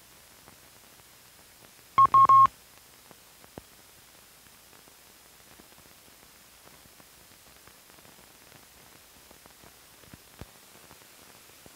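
Hiss and faint crackle of an old film soundtrack's blank run-out, broken about two seconds in by one short, loud, steady beep that stops briefly and resumes, about half a second long.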